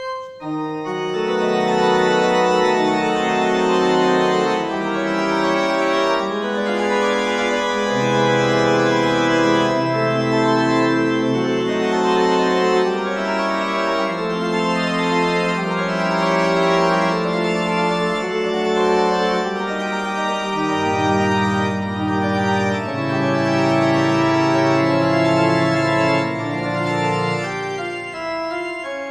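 Organ music: slow sustained chords over held bass notes that change every few seconds.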